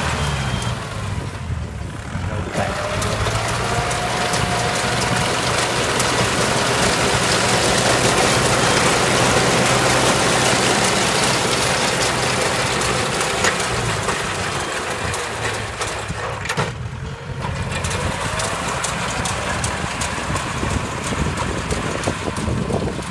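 Kubota L4508 diesel tractor engine running steadily under load while it drives a straw roll baler. The baler's chains, sprockets and rollers clatter over the engine, loudest in the middle stretch.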